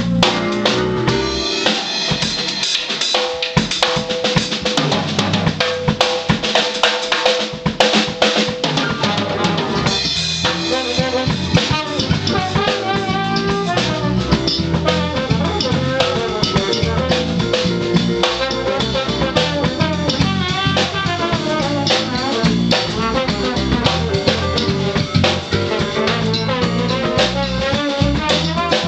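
Live funk band playing: a Ludwig drum kit keeping a busy groove under a Fender Jazz Bass and keyboard, with a held keyboard-range note in the first half. A Selmer trombone joins in near the end.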